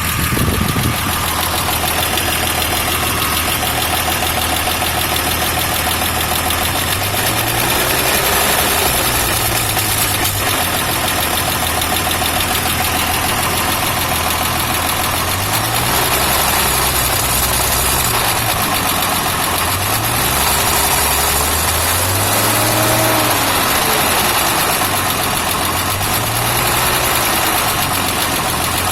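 Toyota Land Cruiser FJ60's 4.2-litre 2F inline-six engine idling, with its speed held up for several seconds and then blipped repeatedly in the second half. It is run to check for a suspected vacuum leak.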